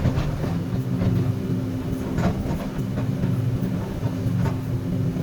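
Komatsu PC200 hydraulic excavator's diesel engine running steadily, with a few sharp metallic knocks from the working machine.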